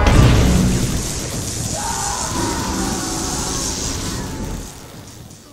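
Film soundtrack of a lightning strike: a heavy boom at the start, then a dense crackling hiss of electricity effects over music, fading out over the last second.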